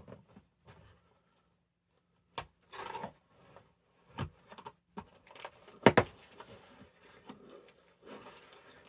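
A mailed package being opened by hand: scattered clicks and short bursts of rustling and tearing, with a sharp double snap about six seconds in, the loudest sound.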